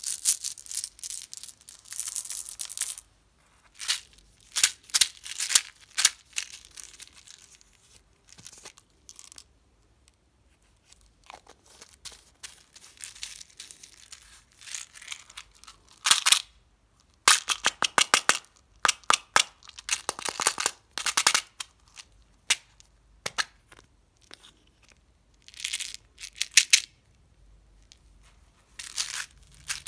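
Small hard candies and plastic candy containers clicking and rattling as they are handled, in irregular bursts of sharp clicks separated by quiet pauses.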